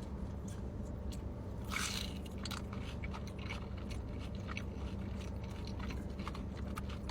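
Close-up biting and chewing on a breaded fried mozzarella stick: many small crisp crunches, with a louder crunching bite about two seconds in. A steady low hum runs underneath.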